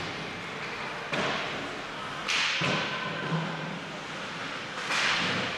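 Ice hockey play on the rink: three sudden sharp scrapes or hits from skates, sticks and puck on ice and boards, about a second, two seconds and five seconds in, the last the loudest, over a steady rink background.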